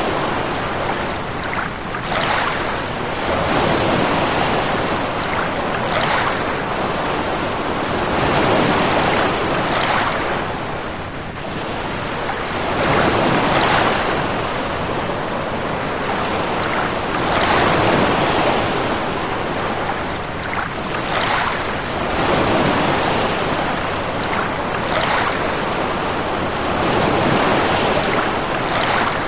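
Ocean waves washing in, a continuous rushing noise that swells and eases every few seconds.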